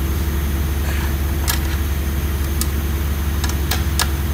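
Steady low mechanical hum throughout, with a few short sharp metallic clicks as a drum-brake shoe return spring is levered into place with locking pliers.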